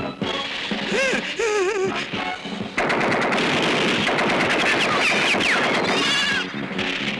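Film-soundtrack battle: a dense stretch of rapid machine-gun fire and gunshots starts suddenly about three seconds in and lasts about three and a half seconds, over music. Just before it, about a second in, comes a short wavering pitched sound.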